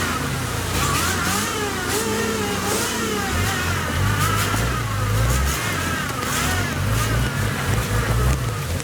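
Modified Toyota Land Cruiser's engine revving up and down repeatedly under load as it works through mud, the low engine note growing heavier about three and a half seconds in, with a steady hiss of rain.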